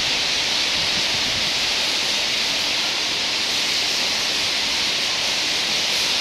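A large flock of white-cheeked starlings chattering all at once, merging into a dense, steady, high-pitched hiss in which no single call stands out.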